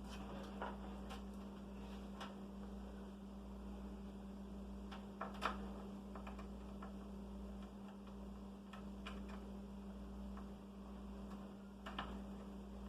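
Steady low electrical hum with scattered light clicks and taps, about half a dozen, from computer cables, connectors and case parts being handled, one sharper click about halfway through.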